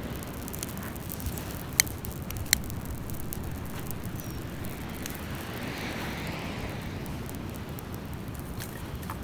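Steady low rush of surf on a beach, with two sharp pops from a campfire about two seconds in and a softer wash of a wave swelling near the middle.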